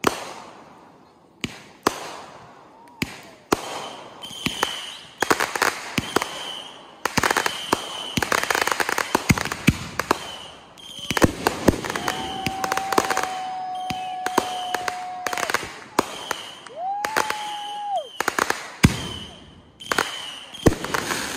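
Consumer fireworks going off in quick succession: launch thumps, sharp aerial bangs and crackling, densest through the middle. A long steady whistle sounds from about halfway in, and a shorter one a few seconds later.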